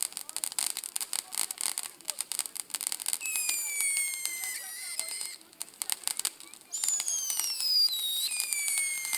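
Fireworks crackling densely, then whistling fireworks giving long whistles that slowly fall in pitch, twice, over continued crackle.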